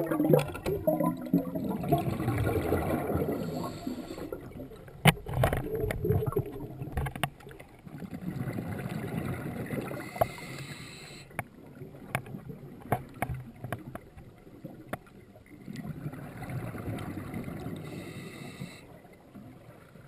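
Scuba breathing heard underwater through a regulator: three swells of exhaled bubbles gurgling, about eight seconds apart, with scattered sharp clicks between them.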